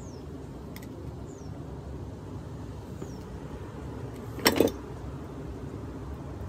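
A sharp double metallic clank about halfway through as hand tools knock against a vintage Century fan's motor housing during disassembly. Under it there is a steady low background rumble, and a faint, short, high falling chirp repeats every second or two.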